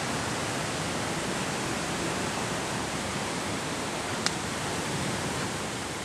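Steady rush of water from a rocky creek running over stones and small cascades, with one brief sharp click about four seconds in.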